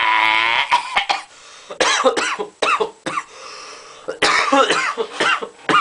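A man's long yelled note breaks off about half a second in, followed by a run of about a dozen rough, raspy coughs and hacks.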